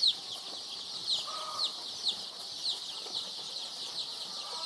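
A flock of 16-day-old layer chicks peeping: a dense chorus of high, falling peeps, with louder single peeps standing out about twice a second.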